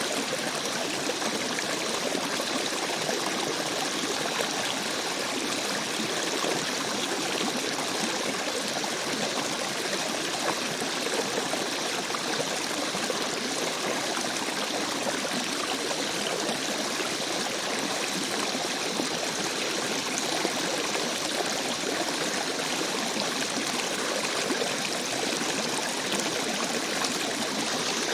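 River stream flowing steadily: an even, unbroken rush and trickle of running water.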